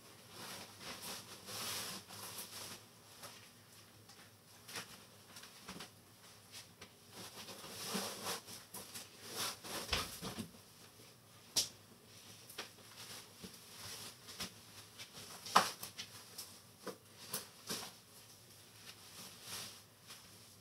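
Scattered light clicks, taps and rustling of small things being handled, with one sharper click about three-quarters of the way through.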